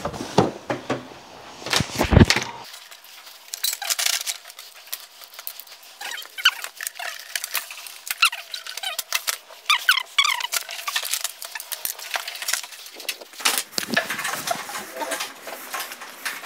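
Handling noises as a chair and a table are moved and set down: knocks and clatter, the loudest a knock about two seconds in, with short high squeaks scattered through the middle.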